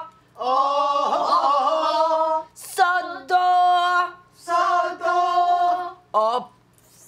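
A woman's solo pansori singing voice, unaccompanied, singing three long phrases and a short fourth one. She holds notes with a wide, wavering vibrato and takes brief breaths between the phrases.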